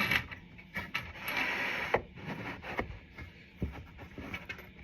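A wooden shelf scraping as it is slid into the routed groove of a wooden stand's side piece, with several light wood-on-wood knocks as it is pushed and fitted.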